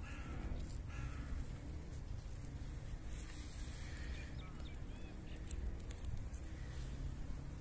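Crows cawing: two short harsh calls in the first second or so, over a steady low rumble, with a few faint clicks later.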